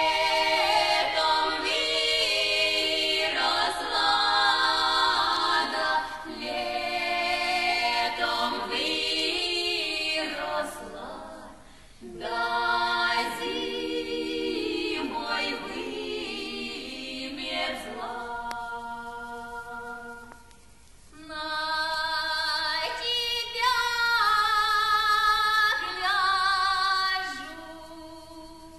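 Female vocal quartet singing a Russian folk song a cappella, several voices together in harmony. The phrases break off briefly about 11 and 20 seconds in, and the last phrase fades out near the end.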